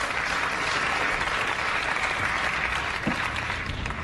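Studio audience applauding, easing off slightly near the end.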